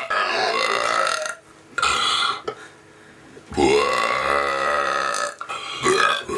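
Loud, deliberate human burps, four in a row with short pauses between. The longest runs nearly two seconds past the middle.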